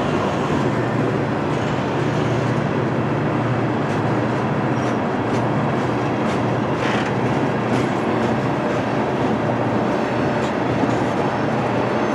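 Freight train rolling past steadily, with a continuous low drone and faint clicking of wheels over the rails.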